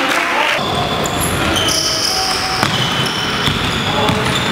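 Basketball game noise in a sports hall: the ball bouncing on the court floor and sneakers squeaking in short, high-pitched chirps as players run and cut.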